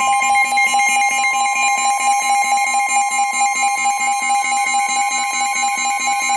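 Emergency Alert System attention tone: a loud, steady two-note alert tone held throughout, announcing a severe thunderstorm warning.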